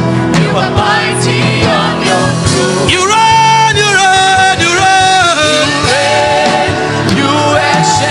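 Worship music: a voice singing long held notes over instrumental accompaniment.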